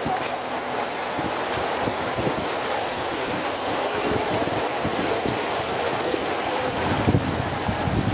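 Water rushing and splashing along the hull of a small moving boat, with wind buffeting the microphone; the wind rumble grows heavier near the end.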